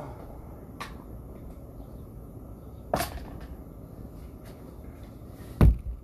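Three sharp knocks or clicks over a steady low rumble: a small one about a second in, a stronger one halfway through, and the loudest near the end.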